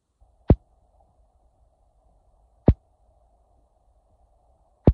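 Three sharp knocks, evenly spaced about two seconds apart, inside a car cabin over a faint steady hum.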